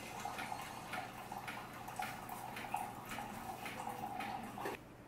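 Single-serve coffee maker brewing: a steady pump hum with regular ticking and dripping about twice a second, cutting off suddenly near the end as the brew finishes.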